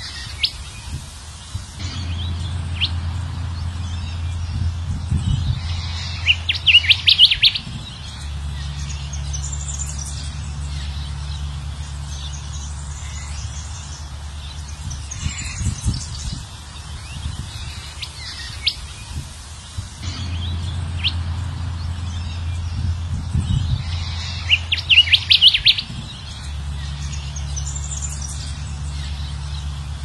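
Kancilan emas (golden whistler) song on a looped lure recording. Scattered sharp chirps build to a rapid burst of notes about six seconds in, and the same passage repeats about eighteen seconds later, over a low steady hum.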